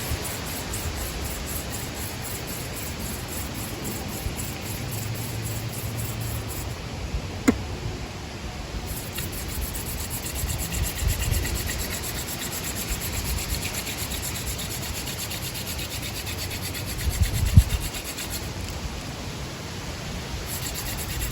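Hand-drill friction fire: a long horseweed spindle spun back and forth by hand in a tulip poplar fireboard, a steady rhythmic rubbing of wood on wood as it works up heat for an ember. Wind buffets the microphone in gusts, with a single sharp click about seven seconds in.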